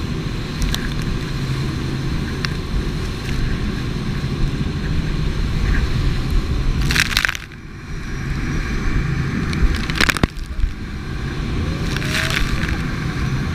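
Jet boat on rapids: a steady low rumble of engine, rushing water and wind, broken by three sudden loud rushes of noise, about halfway through and twice more in the last few seconds.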